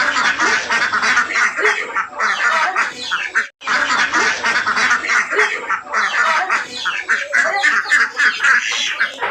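A flock of ducks quacking over one another without pause, broken by a brief silent gap about three and a half seconds in.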